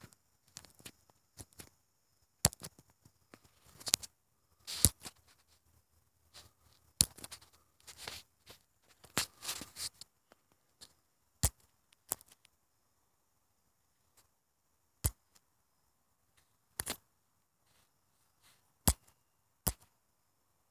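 Irregular sharp clicks and knocks, a second or two apart, with a few brief rustles in the first half: handling noise from a phone being carried and fumbled.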